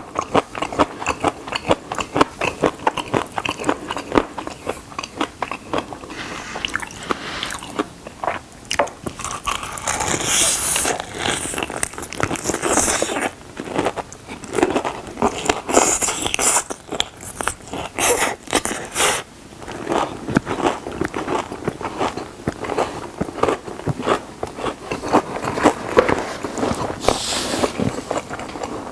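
Close-up crunching and chewing of fried chicken drumsticks: dense, irregular crackles and crunches of the crispy skin being bitten and chewed.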